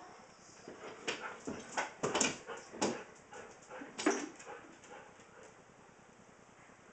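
A 16-year-old Siberian husky vocalizing in a run of short calls, starting about a second in and tailing off after about five seconds.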